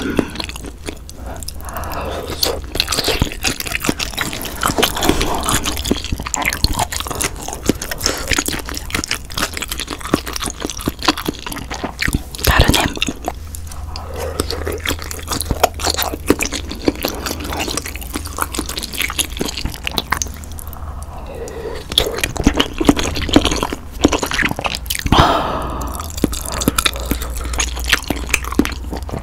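Close-miked wet chewing and mouth sounds of a person eating ham and sausage from budae-jjigae (Korean army stew), with many small wet clicks and crackles.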